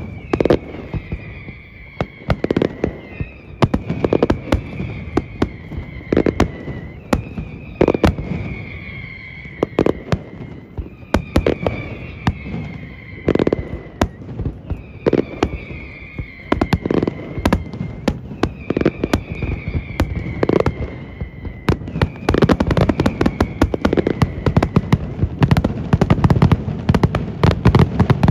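Fireworks display: a stream of sharp bangs and crackles, with long whistles that fall slightly in pitch every few seconds. Over the last several seconds the bangs come thicker and louder.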